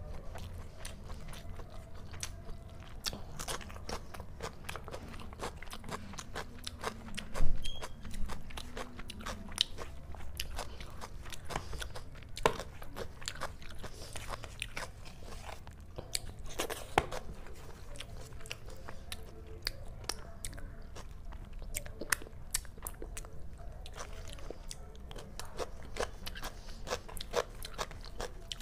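Close-miked eating by hand: chewing and crunching raw cucumber and onion salad with curry and rice, with many small mouth clicks and fingers picking food off the plate. One much louder crunch stands out about a quarter of the way in.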